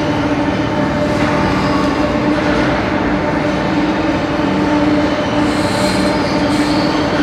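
35-ton overhead travelling crane running while it travels with a suspended railway car: a steady electric drive hum with a constant whine.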